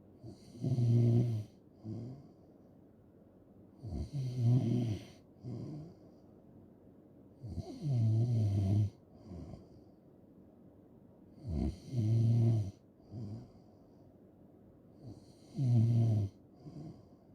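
A person snoring in a regular rhythm: five loud snores about four seconds apart, each lasting about a second and followed by a shorter, softer sound.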